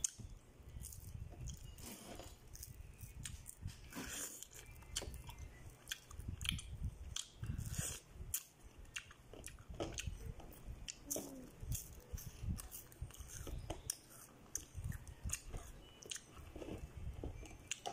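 A person chewing and biting into ripe pineapple chunks, with irregular mouth clicks and soft crunches.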